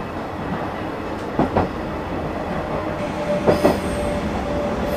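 Freight train of container and timber wagons rolling slowly past: a steady rumble with a double click of wheelsets crossing a rail joint about every two seconds, twice. A faint steady squeal from the wheels comes in about three seconds in.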